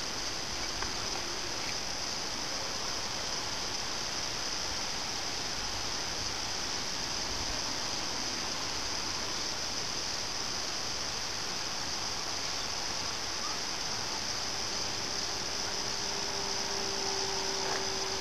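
Steady high-pitched hiss throughout. From about fifteen seconds in, the faint, even drone of a radio-controlled Flyzone Cessna 182's electric brushless motor and propeller rises slightly as the plane flies nearer.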